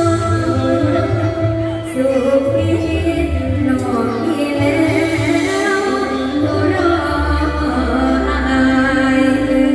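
Live Thai mor lam band music played loud over a PA, with a sung vocal line over heavy bass and drums.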